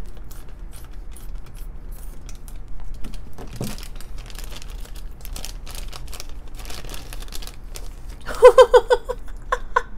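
Scissors snipping through a thin clear plastic toy bag, then the bag crinkling and rustling as it is pulled open and the plastic figure is taken out. Near the end comes a brief run of quick pitched pulses, the loudest sound here.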